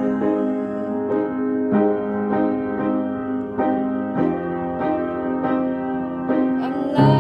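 Piano playing an instrumental passage of slow, held chords, struck again every half second or so, with no voice.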